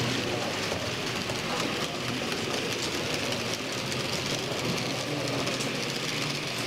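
H0-scale model electric locomotive hauling freight wagons along the layout's track, with a steady rolling whir of wheels and motor.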